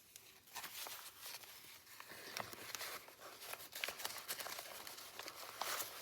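Paper rustling and crinkling with many small clicks as the pages of a handmade junk journal are handled and turned.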